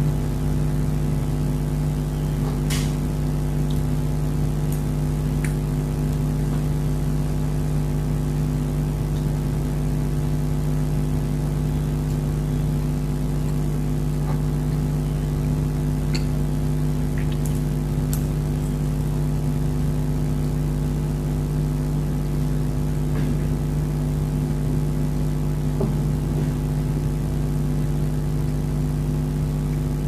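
A steady, droning machine hum that holds several fixed pitches without change, with faint small clicks now and then.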